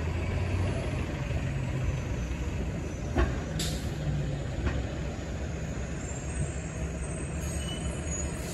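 City transit bus engine running as the bus pulls away and drives off, a steady low rumble. A short hiss comes about three and a half seconds in, with a couple of light knocks around it.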